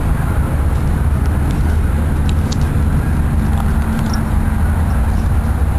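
Steady low outdoor rumble with a few faint clicks and no clear foreground event.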